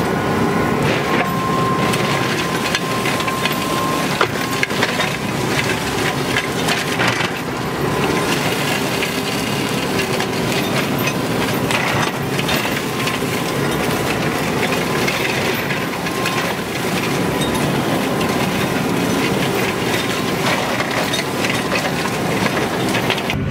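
Tractor-mounted forest flail mower with two flail heads running at working speed, chopping and shredding woody shrubs and brush: a steady, dense chopping noise over the hum of the machine.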